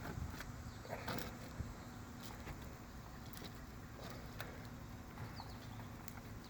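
A squeegee scraping and tapping as it spreads filler into the gaps of a boat's gelcoat repair: short, faint scrapes and clicks at irregular intervals.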